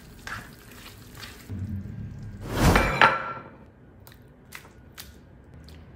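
A spatula stirring and tossing pork belly in thick coconut-milk sauce in a nonstick wok, then, about two and a half seconds in, a loud short thunk with a brief clink, followed by several light clicks of a spoon against a ceramic plate as the food is served.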